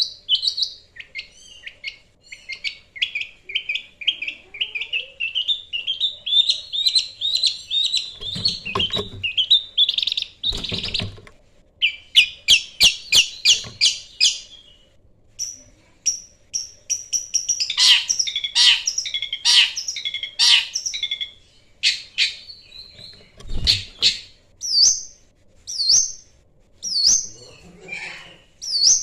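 Long-tailed shrike (cendet) singing a fast, varied, scratchy song of chattering runs and trills, turning near the end to a string of sharp down-slurred notes about once a second. A few dull low thumps sound under the song.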